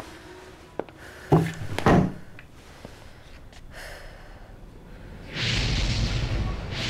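A few short knocks and two louder thumps in the first two seconds, then a steady rushing noise with a low rumble that starts near the end.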